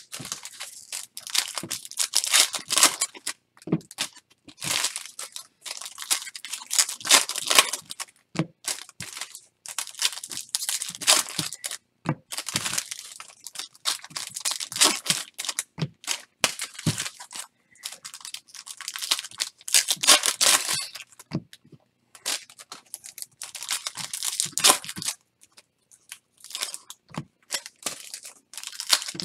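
Trading card pack wrappers being torn open and crinkled, in repeated crackling bursts of one to a few seconds with short pauses between.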